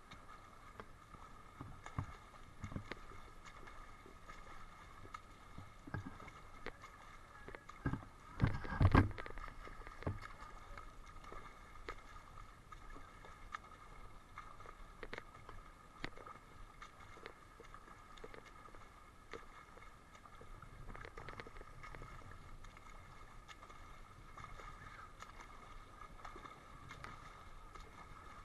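Pool water splashing and lapping as a swimmer swims front crawl close by, over a steady faint hum. There are scattered small knocks, and one much louder splash or knock about nine seconds in.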